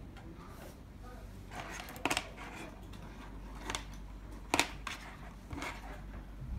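Steel probes and wire cables of a BBQ meat thermometer knocking and rattling as they are handled on a tabletop: four short metallic clicks, the loudest about two and four and a half seconds in.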